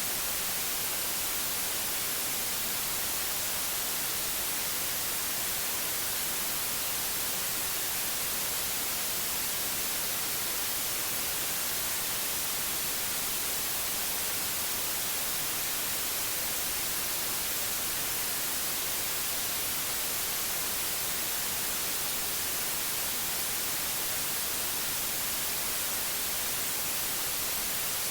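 Steady white noise: an even, unchanging hiss, brightest in the high treble, with no breaks or changes.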